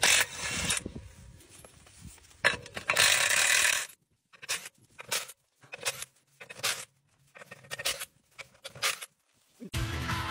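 Scraping and tool noise from work on a pivot irrigation tire: a loud burst at the start, a longer rushing burst about two and a half seconds in, then a run of short scrapes and knocks with quiet gaps between. Music comes in near the end.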